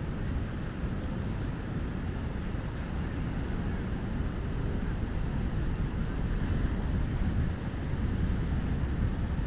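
Steady wash of ocean surf mixed with wind buffeting the microphone, a continuous low rumble with no distinct events.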